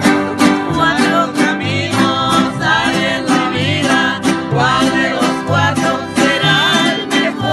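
Acoustic guitars strummed in a steady rhythm with bass notes beneath, and voices singing a folk song over them from about a second in.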